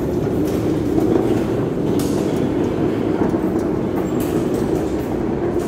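A loaded trolley's hard wheels rolling over a rough concrete floor: a steady rumble with small rattles and clatters.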